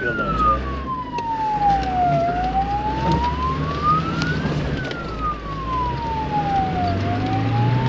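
A wailing siren, its pitch sliding slowly up and down with each sweep lasting about two and a half seconds. Beneath it are the low rumble of the off-road vehicle's engine and a few short knocks from the rough track.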